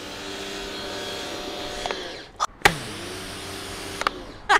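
Corded 120-volt electric pressure washer's motor and pump running with the hiss of the spray. It winds down about two seconds in, a sharp click follows, then it spins up again, runs for about a second and winds down.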